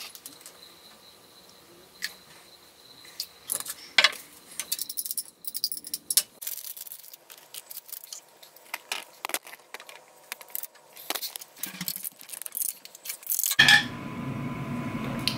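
Scattered clinks and clicks of kitchen handling on a stone counter: a glass and bottle set down, then instant coffee tipped from a packet into a ceramic mug and stirred with a metal straw that clinks against the mug.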